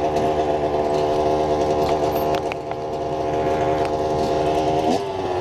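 Dirt bike engine idling steadily close by; about five seconds in its pitch dips and settles slightly lower.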